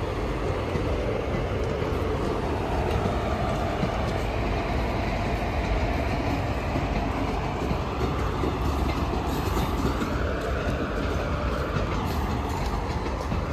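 Passenger train running past on the station tracks: a steady rumble and rattle of its wheels on the rails.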